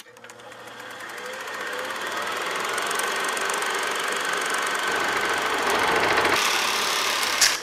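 Film projector sound effect: a steady mechanical whir with fast, even clatter that swells over the first couple of seconds, with a sharp hit near the end.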